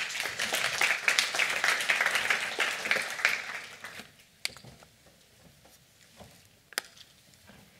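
Lecture-hall audience applauding, a dense patter of many hands clapping that fades out after about four seconds. A single sharp click near the end.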